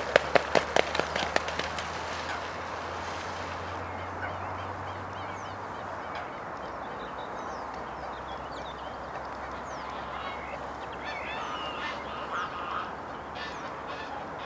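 A quick run of loud honking calls from waterfowl over the first second or so, then steady outdoor background noise with small birds chirping near the end.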